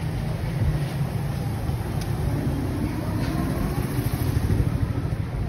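City street noise with a low, steady rumble from a nearby motor vehicle, and faint voices of passers-by.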